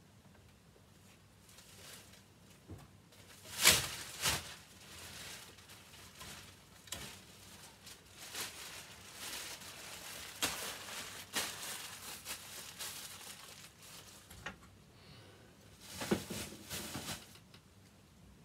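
Thin clear plastic bag crinkling and rustling as it is handled and bunched up, in irregular bursts, the loudest a pair of sharp rustles about four seconds in.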